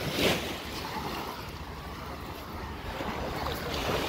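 Wind rushing over the microphone of a moving vehicle, over a low rumble, with two louder gusts, one right at the start and one near the end.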